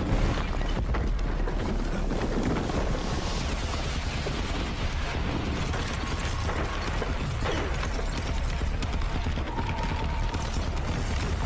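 Sound effects from a CG fantasy action film's soundtrack: a dense, steady low rumble scattered with many small clicks and knocks, with no dialogue.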